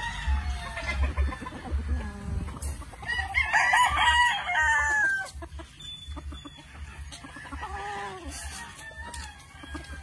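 Rooster crowing once for about two seconds, a little after three seconds in, with shorter, lower clucking calls before and after it.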